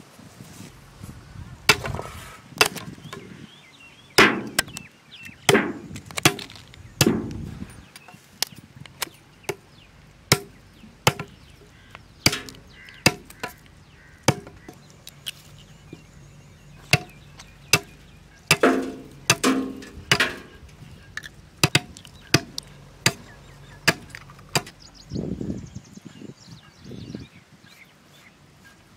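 Bamboo being chopped with a blade: sharp, irregular knocks, roughly one or two a second, with a quick cluster of strikes a little past the middle.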